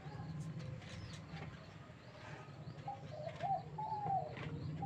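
Baby birds calling faintly: a string of short, falling calls from about three seconds in, with a few faint higher chirps, over a low steady hum.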